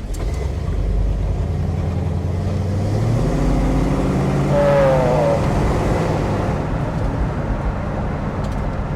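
1969 Shelby GT500's 428 Cobra Jet V8 running on the road, rising in pitch as the car accelerates over the first few seconds, then holding steady. About halfway through, a brief falling whine cuts in at the loudest moment.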